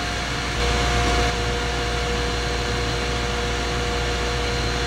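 Steady hum and hiss of running foundry shop machinery, with a faint steady tone joining about half a second in.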